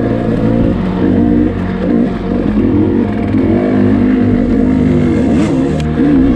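KTM 300 two-stroke dirt bike engine being ridden, its revs rising and falling constantly with the throttle.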